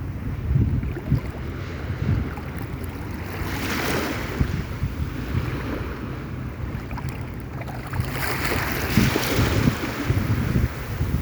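Sea waves washing in twice, each surge rising and then fading, over a constant gusty rumble of wind buffeting the microphone.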